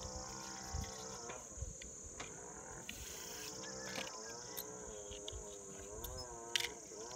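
Sharp clicks of scissors snipping a mosaic tile sheet, the loudest a double click near the end, over a steady high insect drone. Long, drawn-out wavering calls sound through it.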